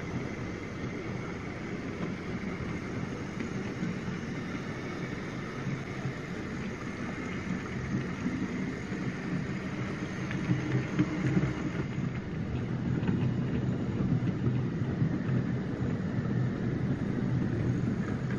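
OO gauge model steam locomotive, a Drummond 700 class, running along the track hauling a train of luggage vans: a steady rumble of wheels on rail with motor hum, louder in the second half as it passes close.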